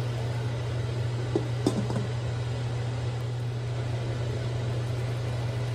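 Fish-head braise simmering in a wok under a steady low hum, with a few light clinks about a second and a half in as a glass lid is set on the wok.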